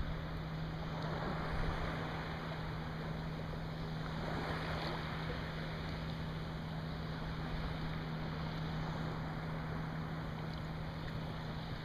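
Steady wash of wind and lapping water, with a constant low hum underneath. A brief louder rush of noise comes about five seconds in.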